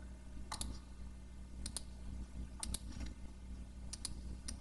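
Computer mouse clicks: four quick pairs of clicks spaced about a second apart, then one more single click, over a steady low hum.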